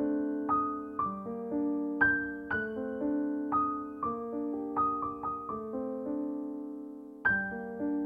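Slow, gentle solo piano music: single notes and chords struck about every half second and left to ring out, with one long chord fading away just before the end, then new notes.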